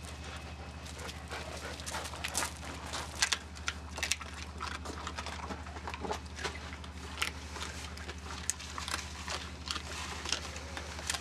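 Stray dogs eating chicken and bread scraps: scattered short crunches and clicks of chewing, over a steady low hum.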